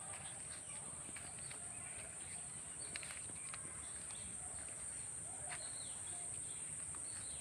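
Rainforest ambience: a steady high-pitched insect drone, with scattered short bird chirps and calls over it, including a few quick falling whistles.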